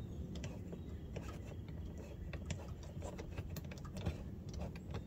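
Light plastic clicks and taps as the small oil-filler access cover is fitted back into the side panel of a Predator 3500 inverter generator, over a steady low background rumble.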